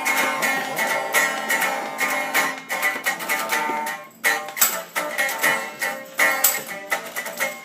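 Guitar being strummed in repeated chords, with a short break in the strumming about four seconds in.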